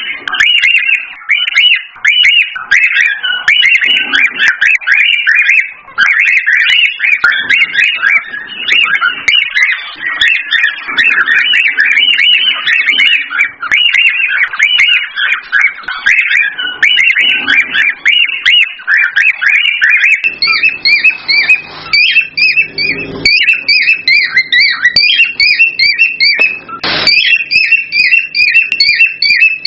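Cockatiels chirping and whistling in a fast, unbroken stream of short, high notes, the excited song of a male cockatiel. About twenty seconds in, the song turns into a more even, repeated two-pitched chirp over a low hum.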